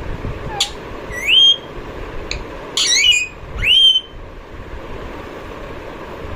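Rose-ringed (green ringneck) parakeet whistling: a short rising whistle just after a second in, then a quick cluster of calls ending in another rising whistle around three to four seconds in, over a steady background hiss.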